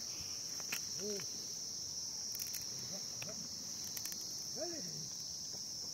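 Steady high-pitched insect chorus. A few brief, low rising-and-falling calls and faint clicks sound underneath it.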